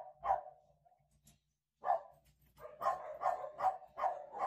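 A dog barking: a single bark near the start and another about two seconds in, then a quick run of about six barks, roughly three a second, near the end.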